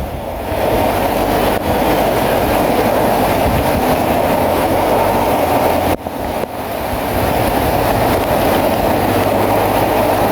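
Bulldozer at work: its diesel engine runs steadily under a dense mechanical clatter, broken off for a moment about six seconds in.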